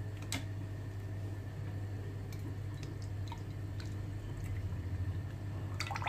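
Thick drinkable yogurt pouring from a bottle into a bowl, starting about halfway through, with a cluster of sharp clicks and drips near the end. A steady low hum runs underneath.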